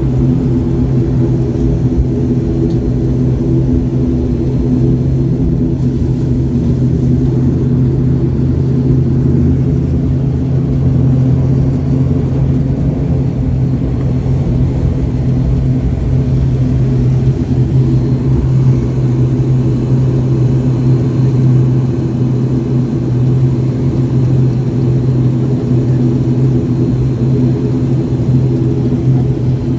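Twin turboprop engines and propellers droning steadily, a deep even hum with higher steady tones above it, heard from inside the passenger cabin.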